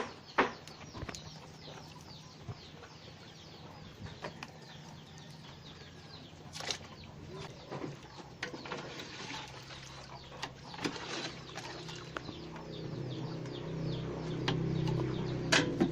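Chickens clucking with other birds chirping, broken by a few sharp knocks. A low steady hum builds up over the last few seconds and becomes the loudest sound.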